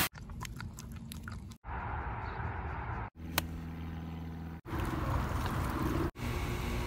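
Short clips of about a second and a half each, joined by abrupt cuts, with the background noise changing at every cut. About halfway through comes a single sharp crack: a golf club striking the ball on a full swing.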